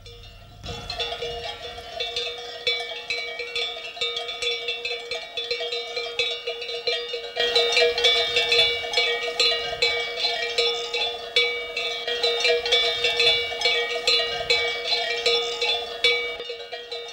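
Many bells on a grazing flock of sheep clanking at once, in an irregular jangle with a lasting ring. The bells start about a second in and grow louder and denser about halfway through.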